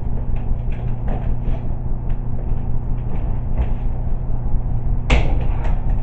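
Steady low rumble and hum, with scattered light clicks and one sharper click about five seconds in.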